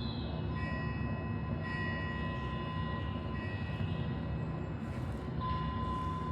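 Steady low rumbling white noise with metal bell or chime tones struck now and then and left to ring on.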